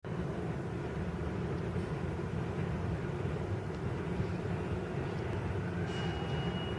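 New York City Subway R142A train approaching through the tunnel, a steady low rumble. A short high steady tone sounds near the end.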